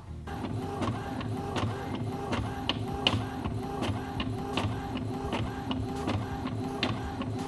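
Epson L382 ink-tank inkjet printer printing a copy. The print head carriage shuttles back and forth with a motor whine and a click at each pass, about two passes a second, as the page feeds out.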